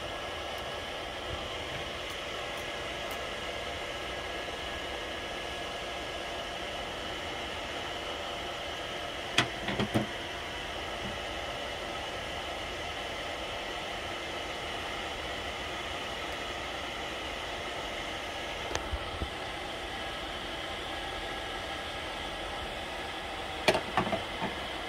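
A steady mechanical hum, like a fan running, carrying several faint held tones. Over it come a few brief clicks and knocks of small parts and a hand tool being handled, about ten seconds in and again near the end.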